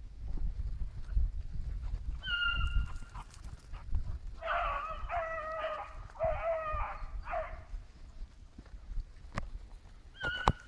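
A pack of hunting hounds giving tongue on a rabbit's scent. A high yelp comes about two seconds in, then a run of about five drawn-out bays around the middle, and another high yelp near the end. A low rumble on the microphone runs through the first few seconds.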